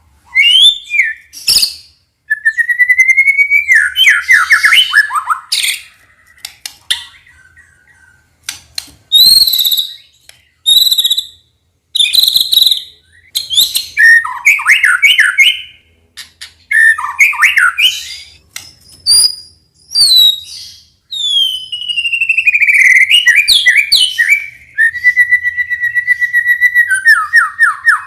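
White-rumped shama (murai batu) singing a varied song: loud clear whistles, rising and falling slurs and rapid trills in separate phrases with short pauses. Near the end it breaks into a fast run of repeated notes.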